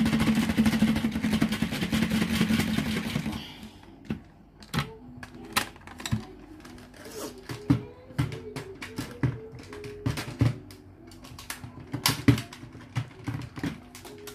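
Dyson vacuum cleaner running with a steady hum and hiss for about four seconds, then switching off. Scattered light clicks and taps follow.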